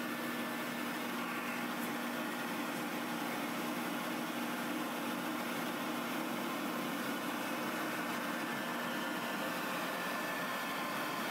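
Pet grooming dryer blowing air steadily, an even rushing noise with a low hum.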